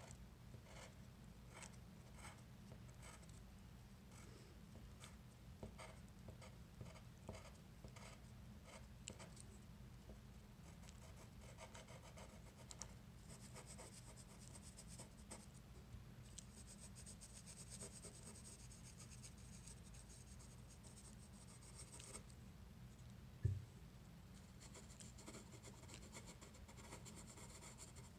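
Faint pencil lead scratching on paper. First come short separate strokes, then longer runs of steady back-and-forth scratching as an area is shaded. A single low thump late on is the loudest sound.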